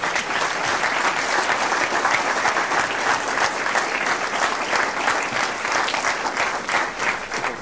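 Audience applauding, many hands clapping together; it starts abruptly and fades near the end.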